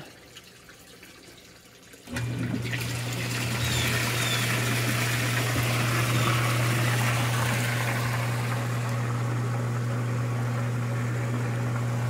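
Hot tub pump starting about two seconds in and then running steadily: a steady motor hum under the rush of water churning through the jets. It runs smoothly, with a new pump seal, a new bearing and both capacitors freshly replaced.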